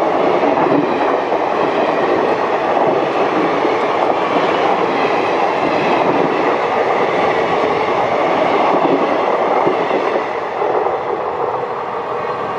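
Indian Railways passenger coaches passing close by at speed: a steady, loud noise of wheels running on the rails, easing a little near the end.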